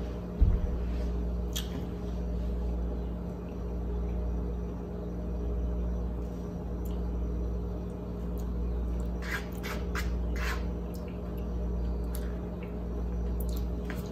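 Steady low hum in a small room, slowly swelling and fading, with a soft thump about half a second in. Faint clicks and scrapes of a fork in a plastic takeout container and of chewing come twice, around nine to eleven seconds and near the end.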